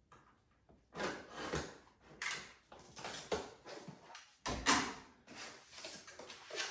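A cardboard shipping box being opened by hand: its tape and flaps are pulled and torn in a string of short ripping, rustling scrapes. A dull thump comes past the middle.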